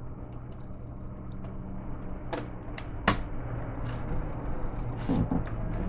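A few sharp clicks and taps of a screwdriver and hands working on a laptop as a keyboard screw is driven in, the loudest about three seconds in, over a steady low hum.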